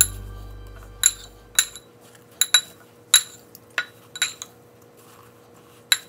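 A metal fork clinking against a glass mixing bowl: about nine short, ringing taps at uneven intervals as a battered cauliflower floret is pressed and turned in panko breadcrumbs.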